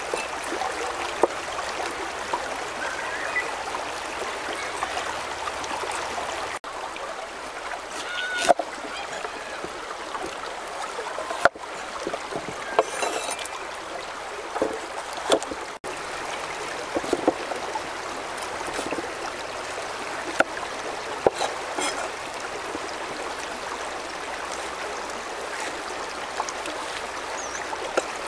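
Knife and cleaver chopping peppers on a round wooden chopping board: irregular sharp knocks, some in quick runs, over the steady rush of a flowing stream.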